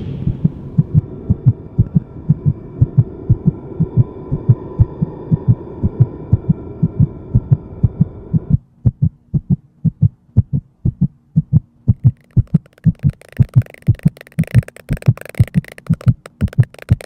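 Heartbeat-like low thuds from a horror film's sound design, evenly paced at roughly two a second, over a low drone. About halfway through the drone cuts off suddenly, leaving the thuds over a faint steady hum. A hissing, airy layer then swells in toward the end.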